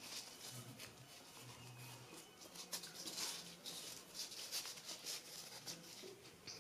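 Faint rustling and rubbing of pasted paper as it is wrapped and pressed by hand around a fireworks sky shot shell, in short scratchy strokes.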